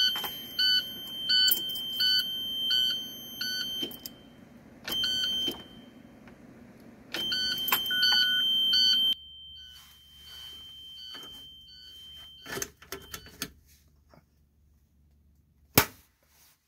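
School bus dashboard warning buzzer sounding in stretches of steady high tone broken by quick beeps about every 0.7 s, stopping about nine seconds in. After that come a few faint clicks and one sharp click near the end, but no engine cranking: the bus will not start while the rear-door Vandalock latch is locked.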